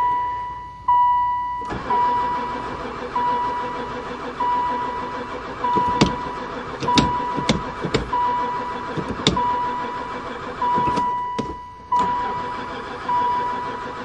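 Starter motor cranking an old Chrysler-built van's engine, which does not fire even with petrol poured into the intake; the owner concludes it has no spark. A steady warning chime beeps about once a second over the cranking, which pauses briefly about a second in and again near the end.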